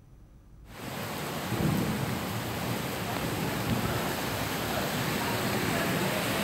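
Heavy rain falling steadily, fading in within the first second, with a low rumble beneath it.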